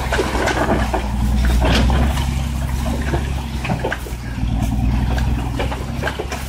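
Truck engine running steadily at low revs under load, its low hum easing slightly about two seconds in. Frequent knocks and rattles sound over it as the vehicle and its log-laden trailer jolt over the rough dirt track.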